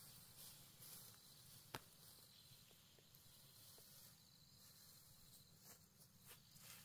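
Near silence: faint rustling of cut ferns and brush being carried by hand, with a few soft crackles and clicks, the sharpest nearly two seconds in, over a faint steady hiss.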